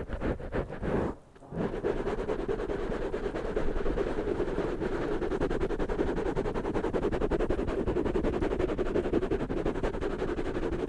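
Fingertips scratching and rubbing the foam covers of a pair of microphones, heard right at the microphones. A few separate strokes come first, then from about a second and a half in a dense, rapid, continuous scratching.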